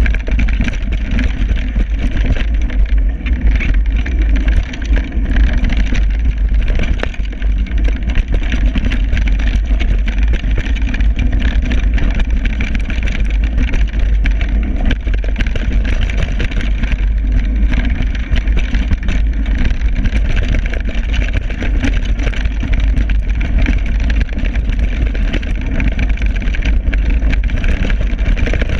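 Wind buffeting an action camera's microphone during a fast downhill mountain bike descent, as a steady low rumble, with constant rattling and knocking from the bike and camera jolting over a rough dirt trail.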